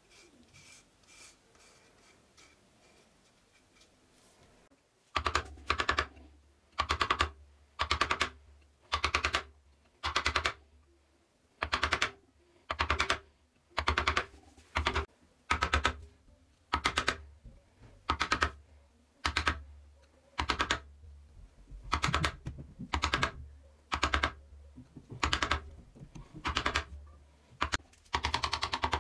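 A thin-bladed hand saw cutting a wooden handle scale held in a steel vise, in evenly repeated back-and-forth rasping strokes a little over one a second, starting about five seconds in. Near the end the strokes come closer together as a file rasps the wood.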